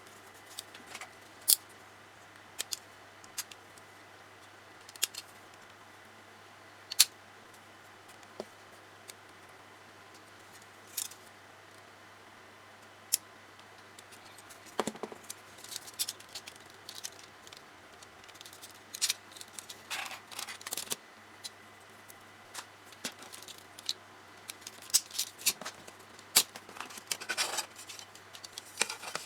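Small plastic and metal parts of a Tamiya Mini 4WD kit clicking and clattering as they are handled and fitted by hand. Isolated sharp clicks a second or two apart at first, growing into busier clusters of rattling from about halfway on.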